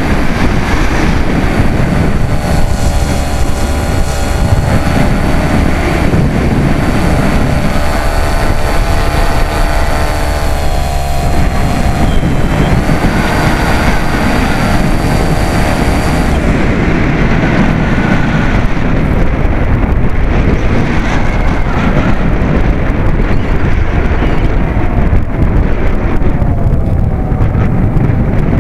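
RC plane's motor and propeller heard from an onboard camera, a steady whine over wind rushing across the microphone. The pitch dips briefly about eleven seconds in and again near the end, and the hiss on top drops away a little after halfway.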